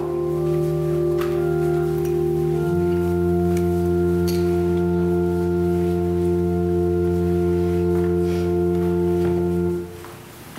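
Organ playing slow sustained chords, changing twice in the first few seconds, then one chord held for about seven seconds before it stops near the end.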